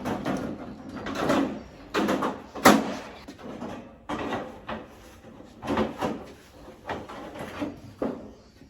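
Irregular knocks, clatter and scraping of steel workbench parts being handled and fitted into the frame, with the loudest, sharpest knock a little under three seconds in.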